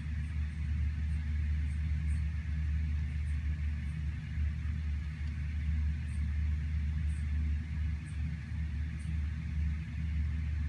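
Steady rain falling on forest trees, over a constant low rumble, with faint short high chirps now and then.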